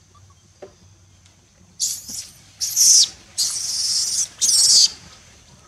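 Baby long-tailed macaque screaming: four shrill bursts in quick succession, starting about two seconds in.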